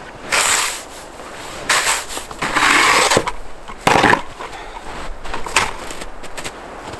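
Irregular scraping and rasping strokes on wood, about five of them, some short and one longer.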